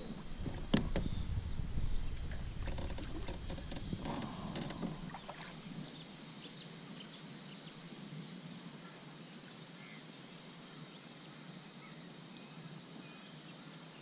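Knocks and low rumble of gear being handled on a fishing kayak, with a sharp knock about a second in. After about six seconds it settles to a faint steady hiss.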